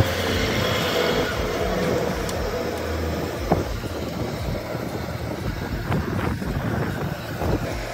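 Battered green chillies sizzling in a wok of hot oil on a gas burner, over a steady low rumble, with a few light metallic clicks of the wire strainer against the wok, one about halfway through and a cluster near the end.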